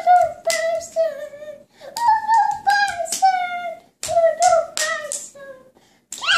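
A toddler girl singing in a high voice, holding long notes that waver in pitch, phrase after phrase with short breaks, and a few sharp claps among the notes.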